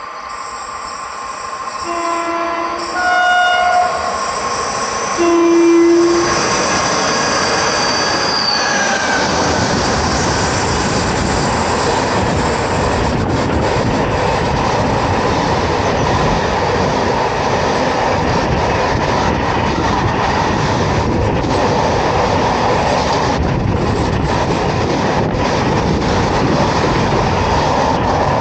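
Horn of a Renfe class 251 electric locomotive hauling a container freight train, sounded three short times as it approaches: low, higher, then low, the last the loudest. Then the long train of container wagons rolls past close by with a steady loud rolling noise of wheels on rails.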